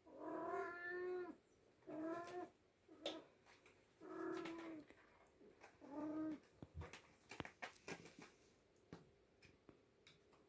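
Oriental kitten meowing four times in drawn-out cries, the first the longest, followed by a run of short clicks and scratches.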